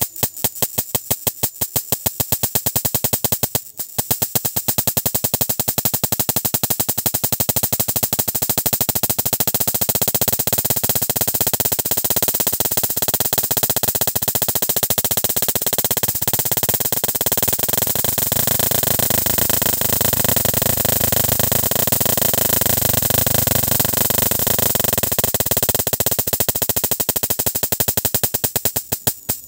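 High-voltage spark discharges snapping in a rapid train. Separate snaps at first, with a brief break about four seconds in, then running together into a dense buzzing crackle.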